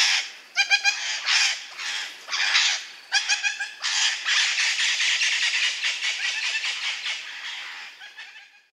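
Budgerigars chattering: quick repeated chirps for the first few seconds, then a continuous busy warble that fades out near the end.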